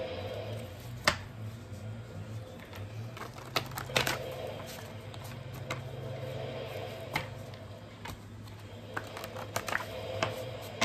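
Tarot cards being handled, pulled from the deck and laid down: scattered sharp snaps and taps about a second apart, over a steady low hum.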